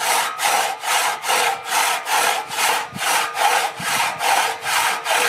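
Hand saw cutting through wood in quick, even back-and-forth strokes, about three a second.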